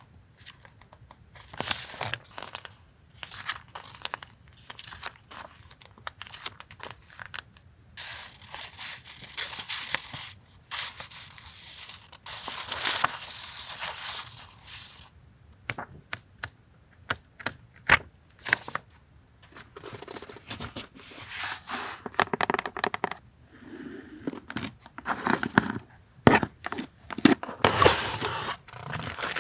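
Paper stationery and its packaging being handled: irregular bursts of crinkling and rustling, with tearing.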